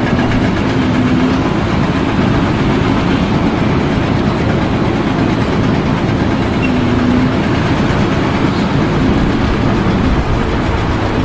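Steady, loud mechanical noise of running machinery, with a faint hum that swells briefly twice.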